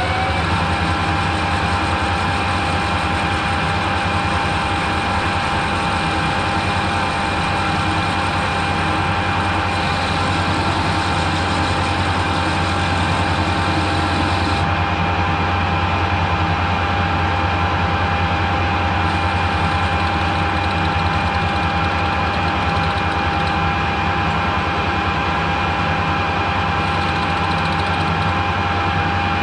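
Metal lathe running steadily at speed, turning down the outside diameter of a 1-inch tube held in its chuck, with a constant whine over a low hum.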